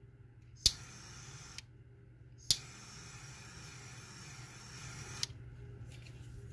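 Butane jet-flame torch lighter lit twice, each time with a sharp ignition click followed by the hiss of the flame: a short burn of about a second, then a longer one of nearly three seconds.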